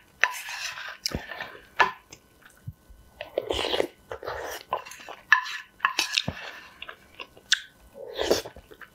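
A person slurping spicy instant noodles in broth and chewing, in several short wet bursts about two seconds apart, with small clicks between them.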